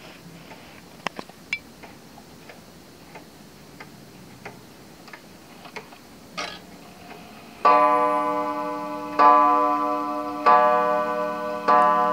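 Junghans wall regulator clock ticking softly as its minute hand is turned up to the hour, then a short whir and clunk as the strike train releases. It then strikes the hour on its gong: four ringing strokes about a second and a quarter apart, each left to ring on.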